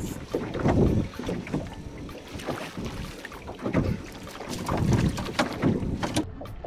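Wind buffeting the microphone and water slapping against a fishing boat's hull, coming in uneven surges every second or two, with a few sharp ticks in between.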